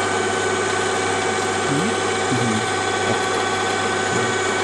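ZE-8B/2 automatic paper folding machine running: a steady mechanical whir with a few constant tones.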